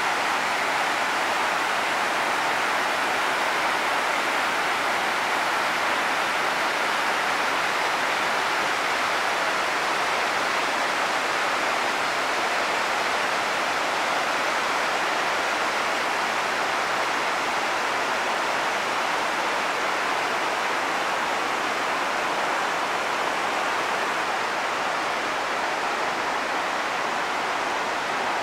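Steady rush of whitewater from Shell Creek tumbling over rocks and cascades in the canyon below Shell Falls, running high with spring snowmelt.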